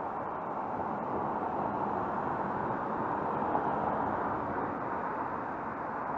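Road traffic: a steady rush of tyre and engine noise from cars passing on the street, with one car going by close about three and a half seconds in.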